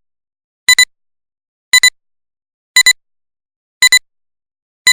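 Electronic double beep, two short high-pitched tones in quick succession, repeating about once a second with silence between; four pairs sound, and a fifth begins at the very end.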